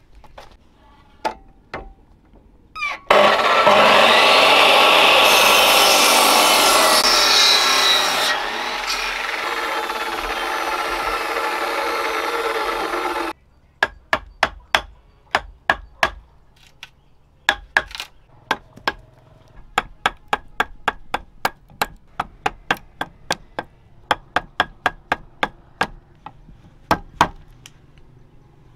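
A power tool runs and cuts wood for about ten seconds, loudest at first, then stops suddenly. After that a hammer strikes a chisel in a steady run of sharp knocks, about one to two a second with short pauses, cutting a notch into a timber beam.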